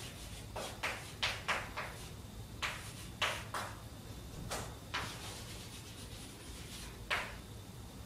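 Chalk writing on a blackboard: a dozen or so short, irregular taps and scrapes, with a pause of about two seconds from roughly five seconds in.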